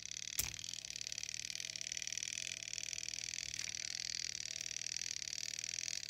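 A single sharp click about half a second in, as a metal multimeter probe is set against the brass terminal of a washing-machine timer, over a faint steady high hiss.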